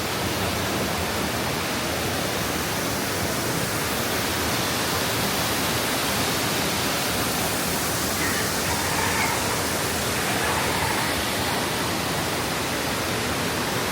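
Steady, even rushing noise, with faint voices in the background.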